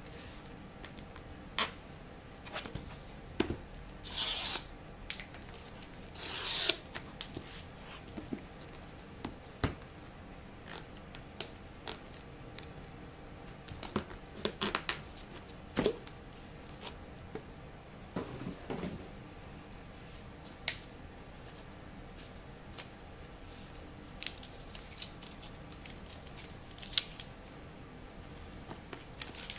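Paper pull-tab seal strips being torn off an iPad Pro's cardboard box: two brief ripping sounds about four and six seconds in. Scattered light taps and clicks of fingers handling the box follow.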